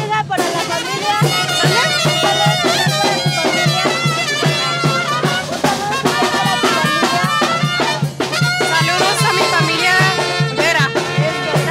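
Tamborazo band playing live: wind instruments carry a melody over a steady beat from the tambora bass drum.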